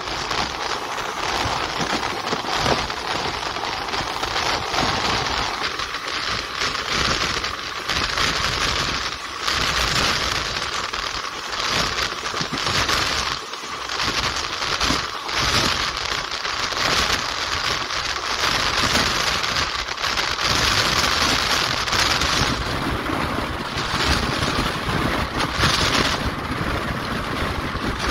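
Passenger train running at speed, heard from on board: a loud, steady running noise, dense with short crackling clicks, from the wheels on the track and the air rushing past.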